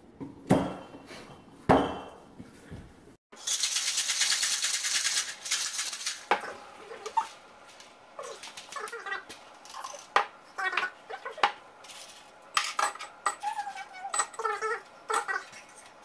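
A cocktail shaker of tin over glass with ice: two sharp knocks, then a few seconds of ice rattling hard inside as it is shaken, followed by scattered clinks of ice and metal.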